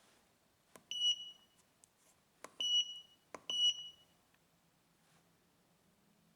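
Keypad of an Autel AL539 handheld scan tool being pressed three times, each press a sharp click followed by a short high-pitched beep from the tool.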